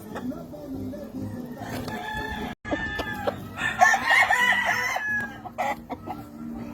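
Gamefowl roosters crowing and clucking, with the loudest crow about four seconds in. The sound cuts out for an instant a little before halfway.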